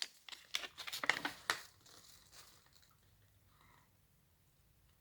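Paper and packaging crinkling and tearing as a folded free poster is pulled out and opened, a few quick rustles in the first two seconds, then near silence.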